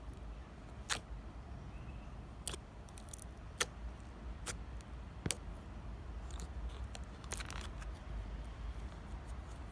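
Thick, chewy slime being squeezed and worked by hand, giving sharp, isolated clicks and pops about a second apart, with a quick flurry of them near the end.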